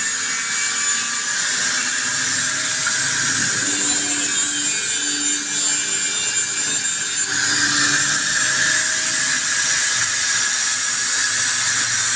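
Handheld power tool running continuously on metal, with a steady high-pitched whine; its tone shifts about seven seconds in.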